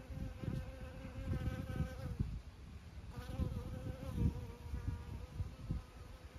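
A flying insect buzzing close by with a steady, slightly wavering hum. It breaks off about two seconds in and resumes a second later. An uneven low rumble runs underneath.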